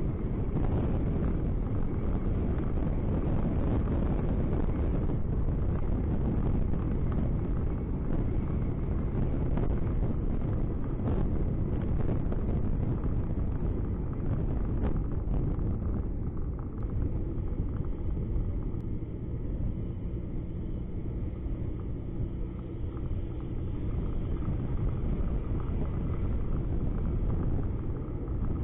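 Car driving, a steady low rumble of engine and tyre noise heard from inside the cabin. It eases a little midway, with a faint steady engine hum.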